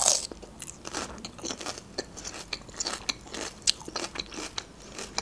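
A crisp bite into a piece of raw red bell pepper, then crunchy chewing with many small crisp clicks.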